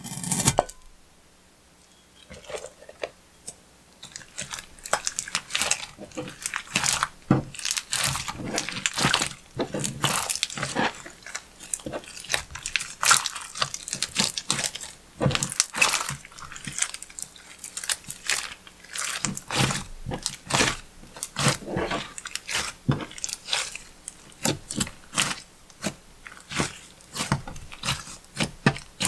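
Clear slime squished and kneaded by hand, giving a dense, irregular run of sticky clicks and crackles. After a brief burst at the very start it goes quiet, and the clicking resumes about four seconds in.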